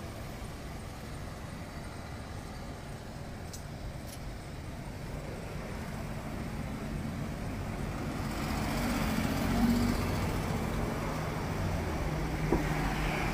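Street traffic: cars passing on the road, their engine and tyre noise swelling to a peak as a car goes by about nine seconds in, with another engine hum near the end.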